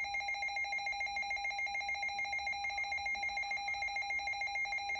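Weather radio receiver's alert alarm: a single high tone beeping very rapidly and evenly, like a ringing phone, signalling an incoming warning.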